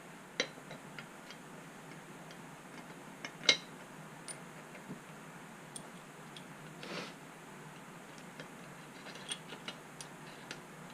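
Scattered small clicks and taps of metal vise parts being handled and fitted by hand, irregular rather than rhythmic, with one sharper click about three and a half seconds in and a brief scrape near the middle.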